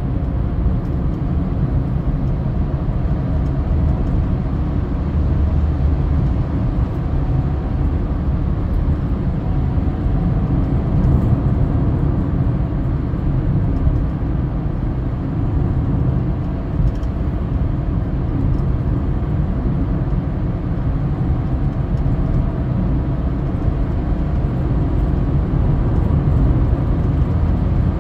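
Steady road noise of a car cruising on a highway, heard from inside the cabin: a low tyre and engine rumble with a faint steady hum.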